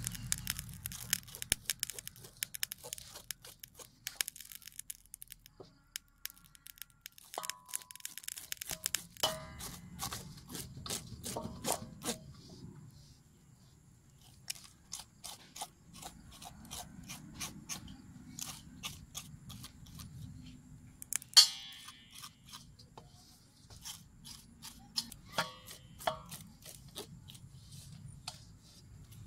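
Scales being scraped off a water snake's skin with a metal blade inside a stainless-steel bowl: runs of irregular small crackling scrapes and clicks, with a couple of quieter pauses and one louder sharp clack about two-thirds of the way through.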